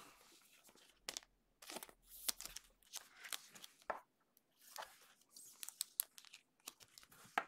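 Faint plastic rustling and scattered light clicks as an acetate trading card is handled into a clear plastic sleeve and a rigid top loader.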